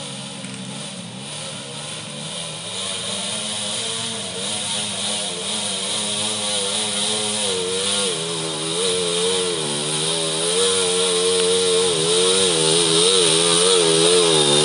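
Gerandong (dolak) motorcycle, a stripped-down wood-hauling trail bike, coming along a muddy trail toward the listener. Its engine revs up and down in uneven surges and grows steadily louder as it approaches.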